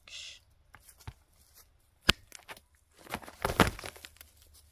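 Hens pecking at a cardboard glue trap holding a mouse: sharp taps, one loud one about two seconds in, then a longer stretch of rustling and scraping in dry straw and cardboard.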